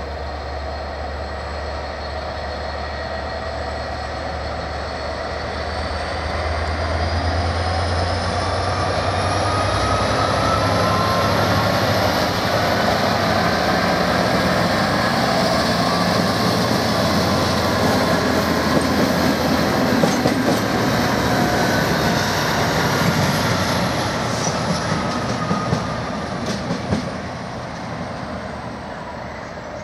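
DRS Class 66 diesel locomotive 66422, with Class 37 37405, passing at low speed. The Class 66's EMD two-stroke engine drones steadily and grows louder as it approaches. As it goes by, the wheels click over rail joints and pointwork, and the sound fades as it moves away near the end.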